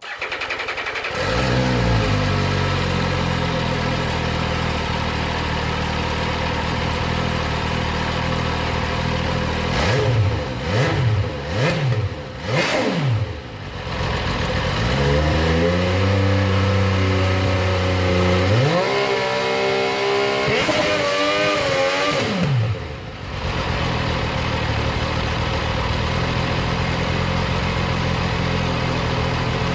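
MV Agusta F3 800's three-cylinder engine settling into a steady idle, then blipped three times in quick, short revs. It is then held at stepped, rising engine speeds for several seconds before dropping back to idle.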